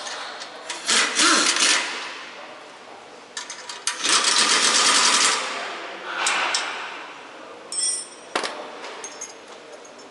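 Impact wrench rattling in several short bursts on bolts, the longest and loudest lasting a little over a second about four seconds in.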